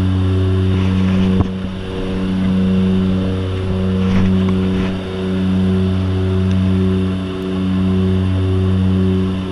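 Aircraft engine and propeller drone heard from inside a jump plane's cabin during the climb: a steady low hum whose loudness swells and fades every two or three seconds. A single knock comes about one and a half seconds in.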